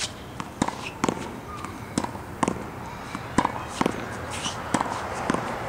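Tennis ball rallied against a practice backboard: sharp pops of the racket striking the ball, the ball smacking the wall and bouncing on the hard court, about three impacts a second.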